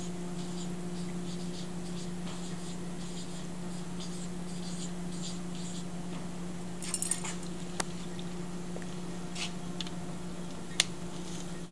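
Felt-tip marker writing on a metal locker door: short, faint, scratchy squeaks stroke by stroke, with a few sharp clicks later on. A steady low hum runs underneath.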